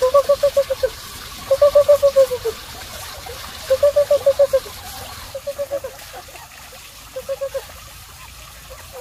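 A person calling chickens in to feed with a rapid, repeated syllable, about eight a second, at one steady pitch. The call comes in five short bursts, the last two fainter.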